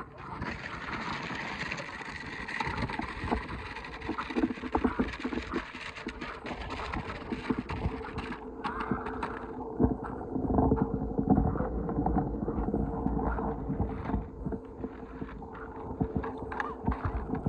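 Child's battery-powered ride-on toy motorcycle, its plastic wheels rattling and scraping over gravelly dirt, then rolling onto pavement about halfway through with a steady motor hum and scattered knocks.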